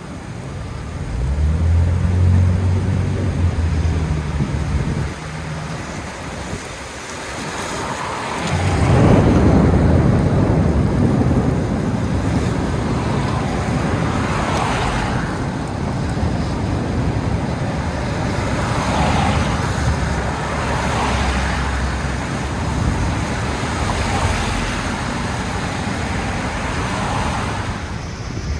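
Gusty storm wind and heavy rain rushing over city traffic. A vehicle engine hums low for the first few seconds, then the wind and rain surge loudly about eight seconds in and keep coming in gusts.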